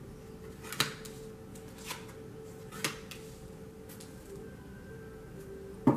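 Tarot cards being drawn and laid down on a cloth-covered table: a sharp card snap about once a second, then a pause before a last snap near the end. Faint background music holding long low notes runs underneath.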